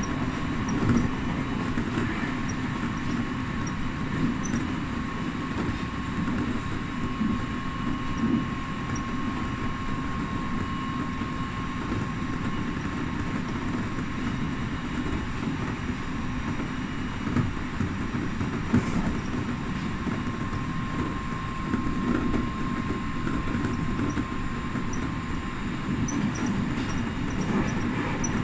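Electric train running at speed, heard from inside behind the driver's cab: a steady rumble of wheels on rail with a faint steady whine and a few scattered clicks.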